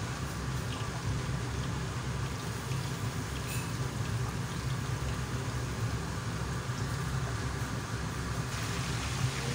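Breaded beef steaks deep-frying in hot oil: a steady sizzling and bubbling, over a low steady hum.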